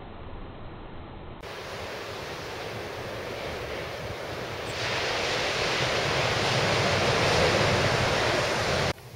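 Ocean surf breaking and washing up a sandy beach, a steady rushing noise that grows louder from about halfway and cuts off suddenly near the end.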